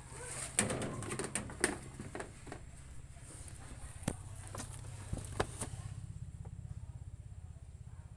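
Kubota DC70 Plus combine harvester's diesel engine idling with a steady low pulsing hum. Scattered sharp clicks and knocks come over it during the first six seconds, then only the idle is left.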